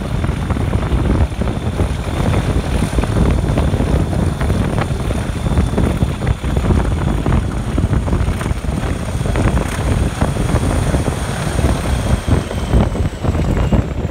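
Two Class 37 diesel locomotives, each with an English Electric V12 engine, working hard under power as they haul the train away, heard from an open carriage window behind them. A steady high whine sits over the deep engine rumble and falls slightly near the end, with wind buffeting the microphone.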